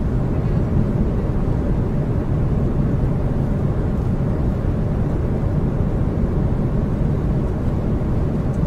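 Steady drone of a large aircraft's engines and rushing air heard inside the cockpit in flight, low and even throughout.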